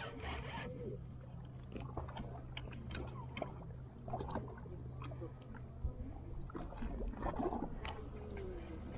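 Spinning fishing reel being cranked against a heavy hooked stingray, giving irregular small clicks and handling noise over a low steady hum.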